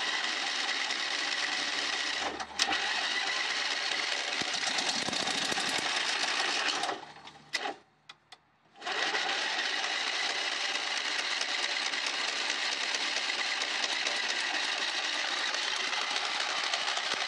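Electric starter cranking the Craftsman riding mower's 21 hp OHV twin-cylinder engine without it catching: one long crank of about seven seconds, a pause of about two seconds, then a second long crank. This is the first start attempt after the bent aluminum intake pushrods were straightened and new plugs fitted.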